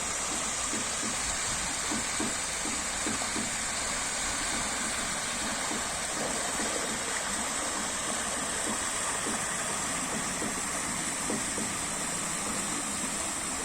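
Stream water flowing steadily, with a continuous rush and small gurgles and splashes throughout.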